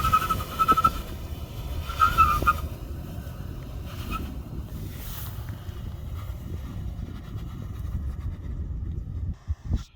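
Toyota 4Runner crawling over slickrock: a steady low rumble of the engine and drivetrain, with a high squeal in the first couple of seconds that then stops.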